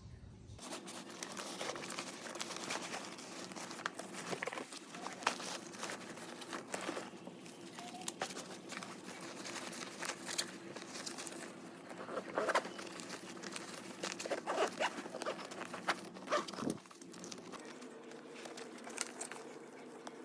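Rustling and crinkling of bags and packaging being handled, with scattered small clicks and taps, over a steady low hum.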